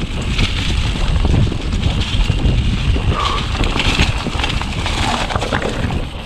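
YT mountain bike rolling fast down a dirt trail covered in dry leaves. The tyres run over leaves and dirt, and the bike rattles and knocks continually over bumps, with wind rumbling on the microphone.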